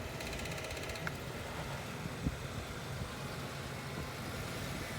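A vehicle engine running low and steady at crawling speed, with a single knock a little after two seconds in.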